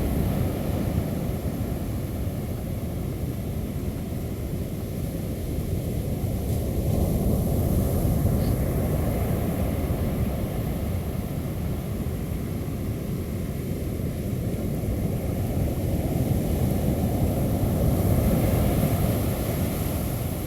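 Wind rumbling on the microphone over the wash of surf, a steady low noise that swells and eases slowly, strongest about a third of the way in and again near the end.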